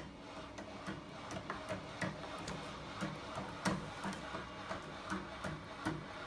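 Homemade aluminium crank-and-linkage magnet engine running, its linkages and weight-plate flywheel clacking about two to three times a second, with one louder knock a little under four seconds in.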